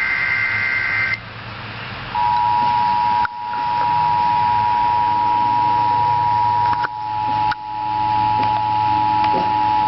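Emergency Alert System tones interrupting TV: a digital header burst ends about a second in, and after a short pause the steady two-tone EAS attention signal starts about two seconds in and holds. The signal announces an emergency alert, here a National Weather Service tornado warning.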